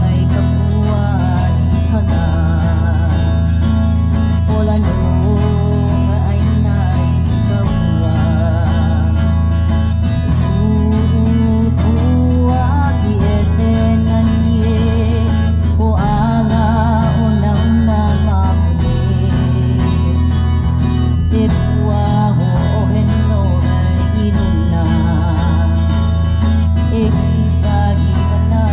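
Live Hawaiian hula song: a singer with strummed guitar or ukulele and a heavy, steady bass, played through stage speakers.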